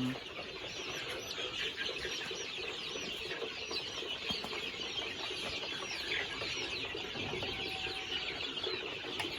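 A large flock of young chickens in a pen: a dense, continuous chorus of overlapping high peeping and clucking.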